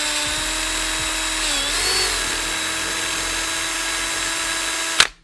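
Power drill running with a small bit, deburring the safety-pin holes of a new inner tie rod. A steady motor whine dips briefly in pitch under load about a second and a half in, then recovers, and stops suddenly near the end.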